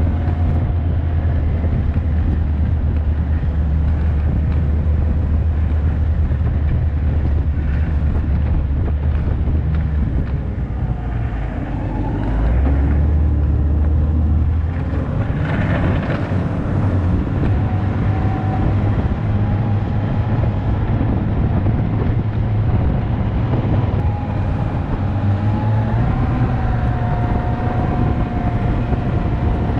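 Snowmobile engine running under way, steady and loud; it eases off briefly around ten seconds in and picks up again about two seconds later.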